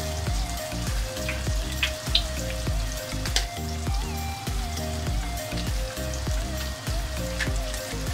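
Background music with a steady beat and a repeating bass line, over light crackling from tomato sauce frying in a pan as eggs are cracked into it.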